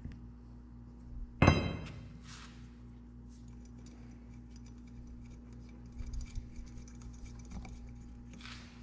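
Small metal clutch parts being handled: one sharp metallic clink that rings briefly about a second and a half in, then softer clicks and rustles of parts being worked, over a low steady hum.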